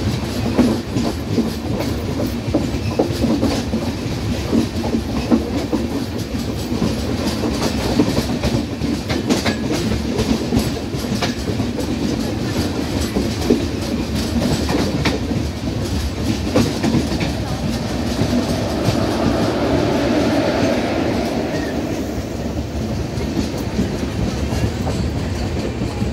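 Track sounds of a moving LHB passenger train heard from an open coach door: a steady wheel rumble with repeated clickety-clack over rail joints, close alongside another train's coaches.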